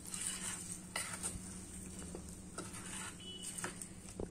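Steel spoon stirring the oily tempering into thick garlic chutney in a stainless steel bowl: irregular scraping strokes with a few light clinks of spoon on bowl.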